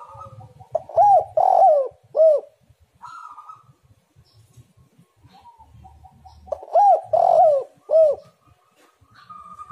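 Spotted dove cooing: two phrases of three or four notes each, about five and a half seconds apart. Faint chirps from other birds sound between the phrases.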